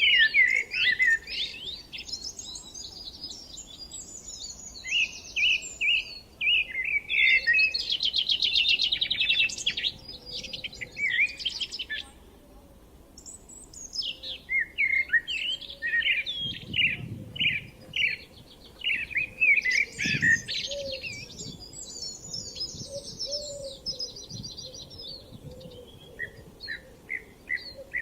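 Several songbirds singing together in a spring chorus: overlapping high warbles, chirps and rapid trills, with a short lull about halfway through.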